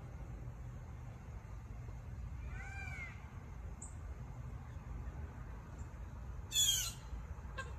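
Birds calling as an alarm around a perched red-tailed hawk: a faint arched call about three seconds in and a tiny high chirp. Near the end comes a loud, harsh call that slides downward. A steady low rumble runs underneath.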